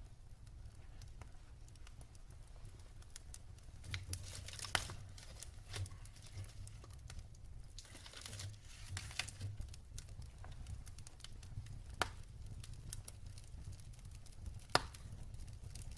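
Wood fire crackling in a fireplace: scattered small pops and a few sharper, louder snaps, the sharpest near the end, over a steady low rumble.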